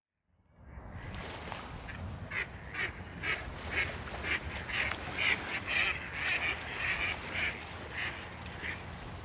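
Waterfowl calling over and over, about two short calls a second, over a steady low background rumble.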